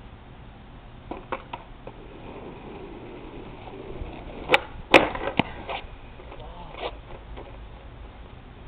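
Skateboard wheels rolling on asphalt, then a sharp crack and a loud clatter of the board hitting the road about halfway through, followed by a few smaller knocks as it bounces to a stop. The rider comes off the board: a missed trick.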